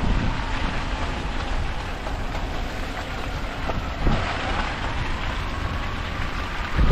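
Road traffic with wind rumbling on the microphone, and a faint whine that slowly drifts in pitch.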